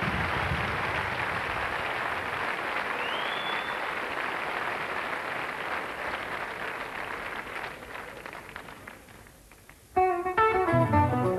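A large audience applauding, with a short whistle about three seconds in. The applause fades away, and about ten seconds in a guitar starts playing plucked notes.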